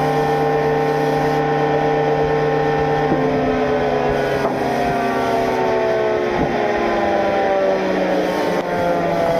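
Sawmill woodworking machine running with a steady, many-toned mechanical hum whose pitch sinks slowly throughout.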